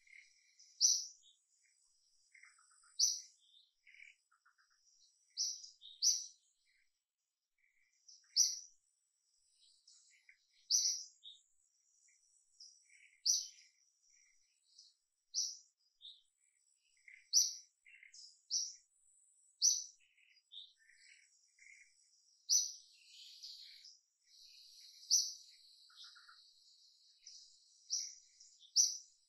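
Birds chirping: a short, sharp high note repeats about every two to two and a half seconds, with fainter chirps between. A faint, steady insect-like buzz comes in near the end.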